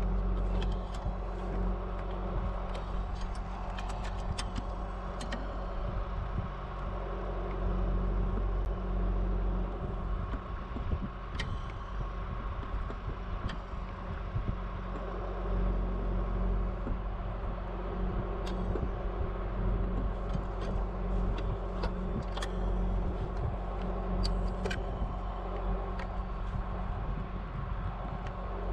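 Bucket truck's engine idling steadily, with scattered small clicks and scrapes of wire being handled at a pole-top insulator.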